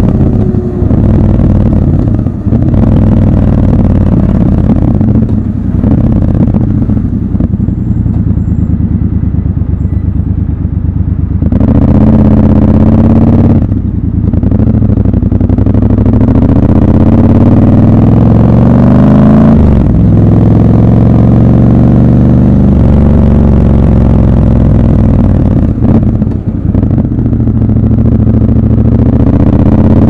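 Triumph Scrambler 1200 XC's 1200 cc parallel-twin engine heard while riding in city traffic. It pulls up in pitch several times as the bike accelerates, with brief dips in between as the rider shifts gear, and spells of steadier running.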